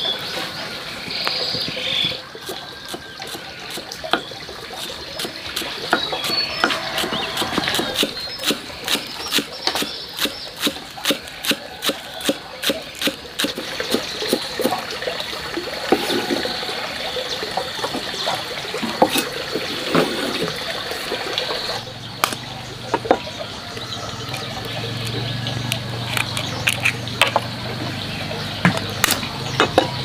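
Knife chopping green onions on a wooden chopping board: a run of sharp taps, about two or three a second, with more scattered chops later on.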